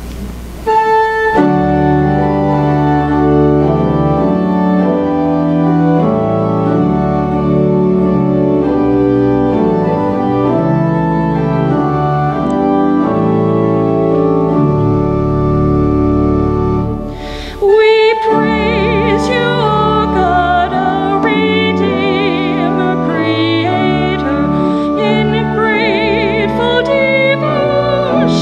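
Church organ playing a slow hymn introduction in long held chords. A woman's solo voice with wide vibrato comes in over the organ about two-thirds of the way through.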